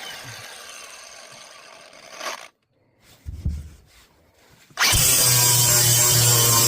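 Handheld electric power tool, of the kind used to sand the fiberglass transom, winding down after being switched off. A few faint knocks follow in the quiet, and about five seconds in it is switched back on and runs steadily at full speed.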